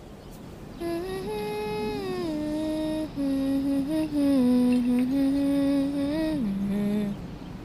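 Music: a single voice hums a slow melody, holding each note and gliding between them, drifting downward and ending on a lower held note near the end.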